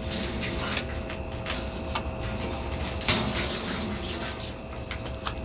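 Tarot cards being drawn from the deck and laid down on a cloth-covered table: papery rustling and sliding of card stock with a few soft taps as cards are placed.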